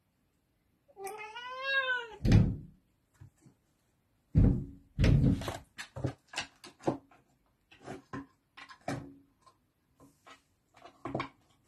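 A domestic cat meows once, a call about a second long that rises and falls in pitch, with a heavy thump right after it. Then comes a long run of irregular knocks and rattles, the cat pawing and knocking at a metal window latch.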